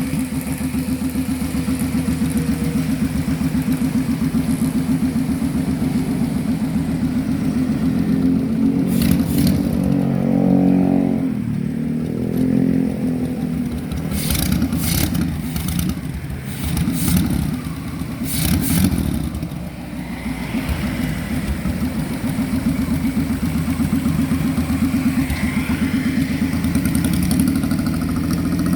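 A 1000cc car engine fitted in a custom motorcycle, idling steadily with a brief rev about ten seconds in. Several sharp clacks are heard through the middle stretch.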